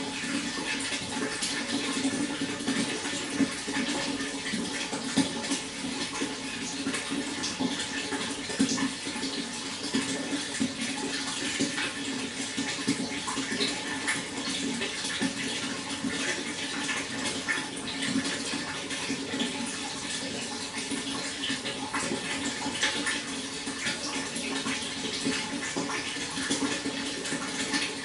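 Water flowing steadily, a continuous rush with many small splashes and drips throughout.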